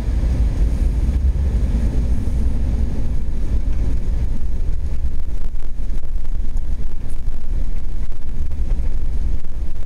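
Steady, deep rumble of a vehicle driving, with wind buffeting the microphone.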